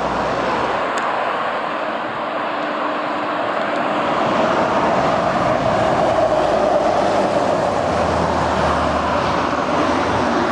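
Steady rush of passing road traffic, tyre and engine noise, growing louder about halfway through as a DAF XF articulated lorry hauling a shipping container drives past close by.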